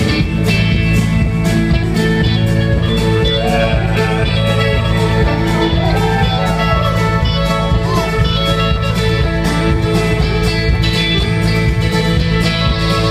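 A live country-rock band playing an instrumental passage with no singing: acoustic and electric guitars over a steady drum beat.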